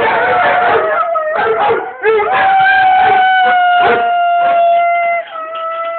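Rhodesian Ridgeback howling in greeting: a run of short, bending whines and yelps, then about two seconds in one long steady howl held for about three seconds, followed by a shorter one near the end.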